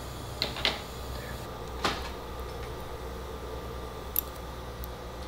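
A few sharp clicks of metal surgical instruments (hemostat and probe) handled in the mouth: two close together about half a second in, a louder one about two seconds in, and a small high click near the end. They sit over a steady low hum.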